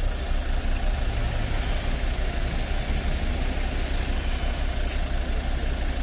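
Fire truck's engine idling close by: a steady, constant low rumble.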